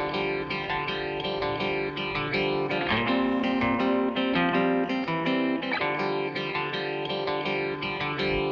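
Background music led by plucked guitar, played as a steady run of picked notes.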